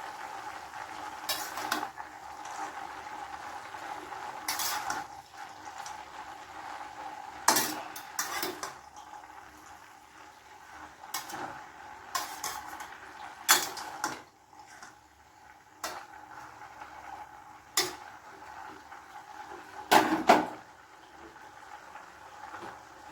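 A metal utensil knocking and scraping against a cooking pan while vegetables are stirred, in sharp, irregular clinks every second or two over a steady background hiss.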